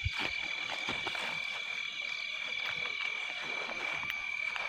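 Night chorus of frogs and insects, with a steady high-pitched trill under it, and a few faint rustles and soft steps through vegetation.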